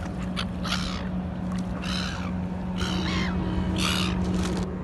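Seagulls calling: several short, harsh calls about a second apart, over a steady low hum.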